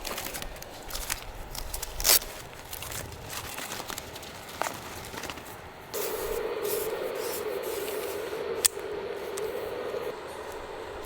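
Handling noise while a camping tarp is pitched: fabric and gear scraping and rubbing, with a couple of sharp knocks. A steady hum runs for about four seconds from about six seconds in.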